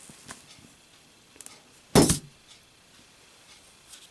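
A lit Zippo lighter dropped, landing about two seconds in with a single sharp metallic clack and a brief ringing rattle.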